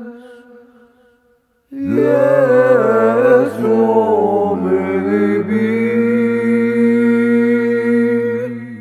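Choir-style chanted singing: a held sung note fades out in the first second, then after a short gap a full chord of voices comes in suddenly over a low sustained tone, with a moving line in the first few seconds, held until near the end where it dies away.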